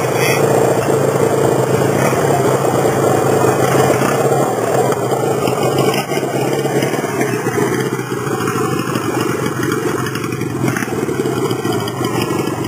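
Custom chopper motorcycle's engine running as it rides up, passes close by and pulls away, a rapid even exhaust pulse that grows a little quieter in the second half.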